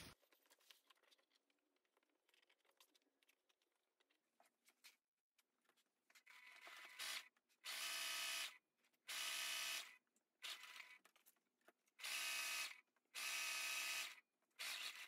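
Sewing machine stitching a seam in short bursts, starting and stopping about four times in the second half, each run lasting about a second, with faint handling of the fabric before the first run.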